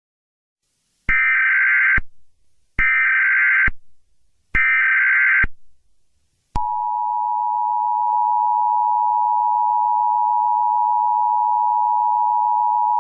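Emergency Alert System tones: three roughly one-second bursts of data header screech with short gaps between them, then about six and a half seconds in a loud, steady two-tone attention signal that holds on with a faint hiss under it.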